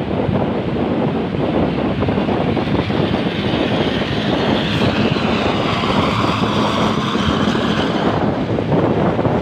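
Bus driving past: steady engine and road noise with wind on the microphone, and a higher whine that swells for a few seconds in the middle.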